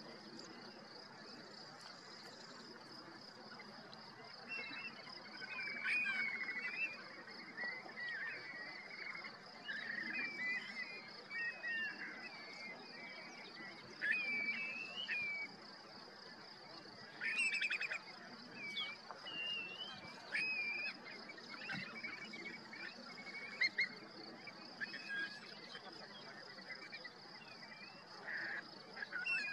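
A mixed flock of shorebirds calling: many short whistled calls that dip and rise, coming in irregular clusters after the first few seconds. Behind them runs a steady, high-pitched pulsing buzz.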